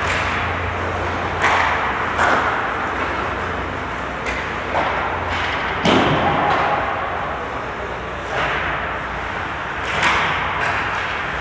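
Ice hockey play echoing through an indoor rink: about six sharp cracks of sticks and puck striking, the loudest about six seconds in, over a steady low hum.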